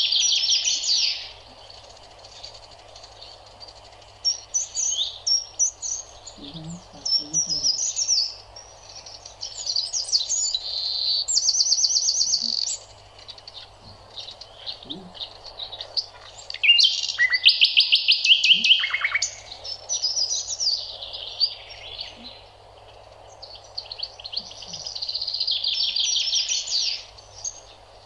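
Songbirds singing: varied chirps and quick trills in phrases of a second or two with short gaps between them, over a faint steady hiss.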